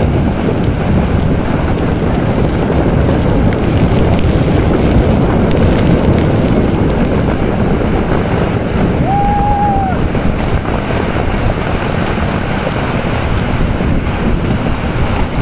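Wind buffeting the microphone and water rushing past an inflatable towable ride being pulled across a lake at speed. A short high note about nine seconds in, lasting about a second.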